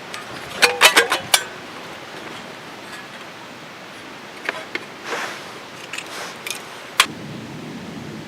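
A handful of sharp clinks and knocks from small hard objects being handled. There is a quick cluster of them about a second in and a few scattered ones later, over a steady background hiss.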